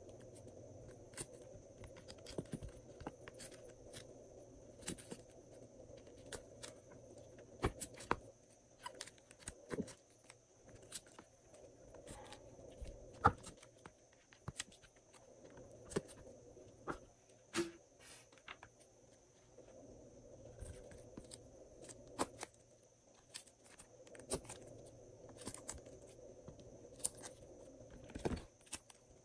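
Glossy slime being worked by hand, giving many faint, irregular clicks and pops.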